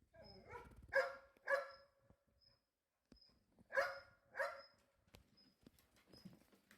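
A dog barking: two pairs of short barks, about a second in and again near the middle. Faint, evenly spaced high chirps run behind them.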